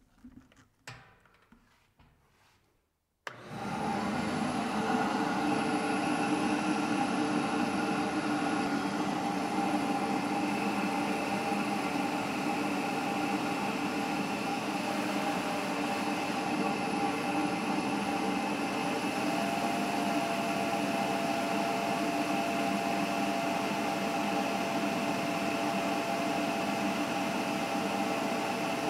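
Ridgid 6.5-horsepower wet/dry shop vac running steadily, pulling air through the original Dust Deputy cyclone separator and hose during an airflow test. It cuts in abruptly about three seconds in after faint handling sounds, with a steady drone and a thin high whine, and a further steady tone joins about two-thirds of the way through.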